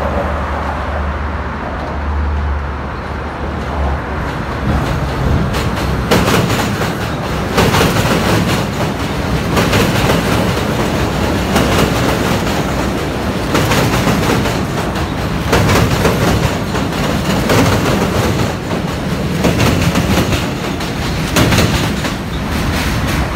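R32 subway train approaching and passing close by on steel bridge track: a low rumble at first, then a rhythmic clack of its wheels over rail joints about every two seconds as the cars go by.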